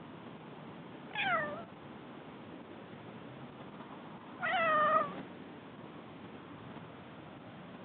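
Domestic cat meowing twice: a short meow falling in pitch about a second in, then a longer meow about three seconds later.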